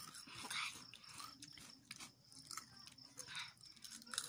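Crunchy snack chips being chewed close to the microphone: a run of small, irregular crunches.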